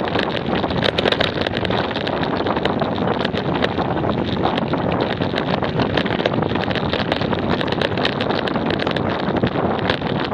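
Bicycle coasting over a loose gravel track: tyres crunching on the stones with constant small rattles and ticks, and wind rushing over the microphone.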